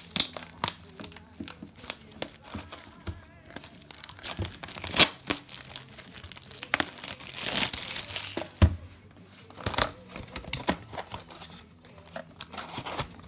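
Plastic and cardboard packaging of a trading-card booster display box being crinkled and torn open by hand: irregular crackles and rips, with a longer, louder tear about seven to eight seconds in.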